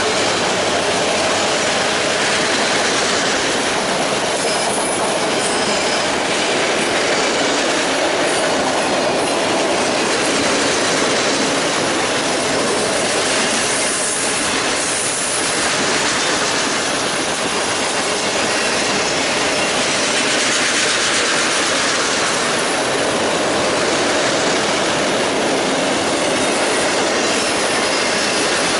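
Freight train of autorack cars rolling past, with steady wheel and rail noise from the passing cars.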